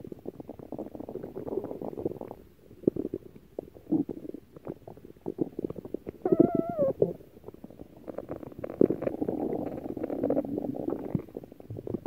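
Stomach growling: long, bubbly gurgling rumbles full of little pops. They ease off briefly about two and a half seconds in and again around seven to eight seconds. A higher, squeaky, wavering gurgle comes around six seconds in.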